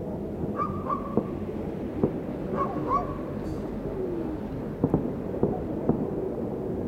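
Fireworks going off at a distance: scattered sharp bangs over a steady background of noise, with a few short high-pitched calls in between.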